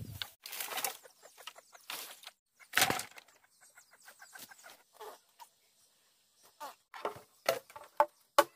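Chickens clucking in short, broken calls, among a few sharp knocks and rustles.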